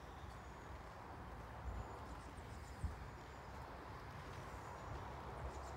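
Quiet background ambience: a low, steady rumble with a few faint, high, distant chirps and a soft thump about three seconds in.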